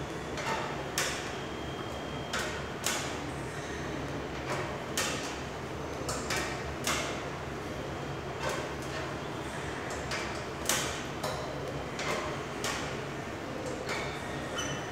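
Vasa swim trainer in use: the bench carriage slides along its inclined rail while the cable handles are pulled through swim strokes. This gives sharp mechanical clacks, often in pairs, about once a second with each stroke.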